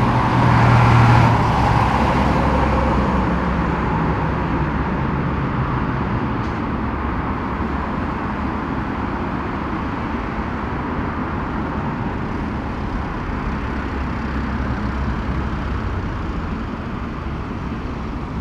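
Boeing 777 freighter's twin GE90 turbofan engines running as the aircraft rolls away on the runway. The steady jet noise, with a low hum and a whine, is loudest about a second in and then slowly fades. It cuts off suddenly at the very end.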